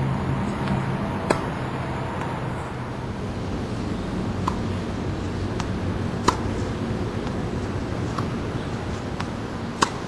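Tennis balls struck by rackets during play: a few sharp pops spread out over about ten seconds, the loudest about a second in, past the middle and near the end, with fainter ones between, over a steady background rumble like traffic.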